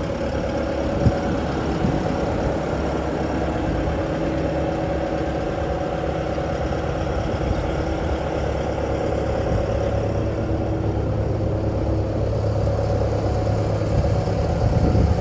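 Bobcat T740 skid steer's turbocharged four-cylinder D34 diesel engine running steadily, with one sharp knock about a second in.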